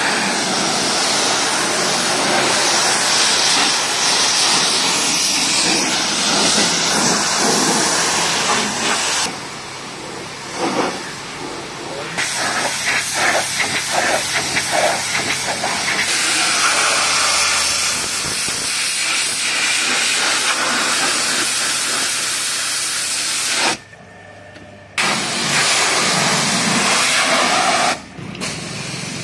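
Pressure washer jet spraying water onto a car's body panels and wheels, a loud steady hiss as it rinses off the foam. The spray eases off for a few seconds about a third of the way in, then stops for about a second twice near the end.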